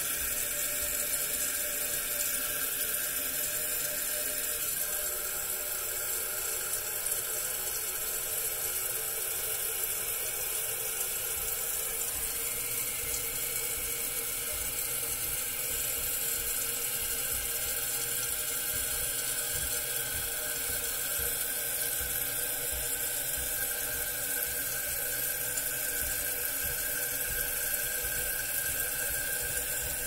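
Toilet fill valve in a Kohler Cimarron tank running as the tank refills: a steady rush of water with faint whistling tones.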